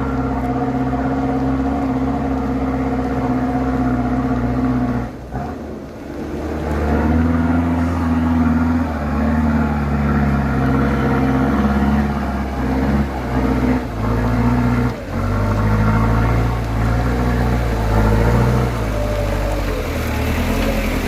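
Diesel truck engine pulling under load up a climb, its pitch shifting, with brief drops in level about five seconds in and again about fifteen seconds in.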